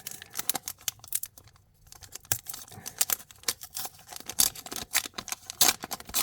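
Wrapper of an Adrenalyn XL trading-card pack being torn open and crinkled by hand, a run of short crackles and rustles that grows busier in the second half.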